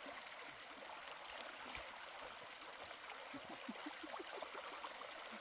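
Shallow rocky stream running over stones: a steady rush of water, with a few short gurgles about three to four seconds in.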